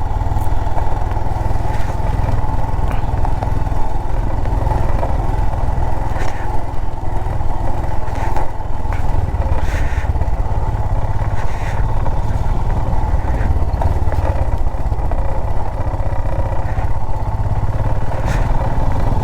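Motorcycle running steadily while riding over a rough, slushy trail, with a deep steady rumble and a few short clattering knocks.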